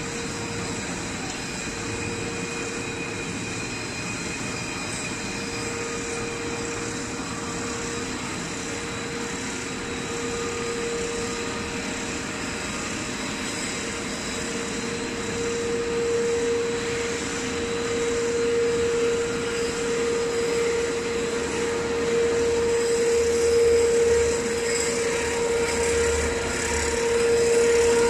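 Straight-line wire drawing machine running, drawing low-carbon steel wire: a steady machine hum with a strong held tone, growing louder over the second half.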